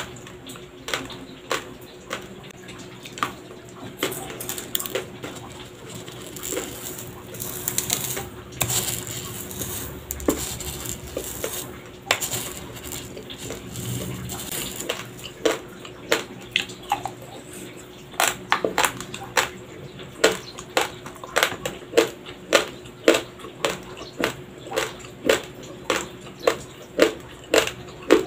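Close-miked crunching of raw, uncooked Dinurado white rice being chewed: sharp, hard crunches that settle into a steady rhythm of about two a second in the second half. Around the middle, dry grains rustle as a wooden spoon scoops rice from the bowl.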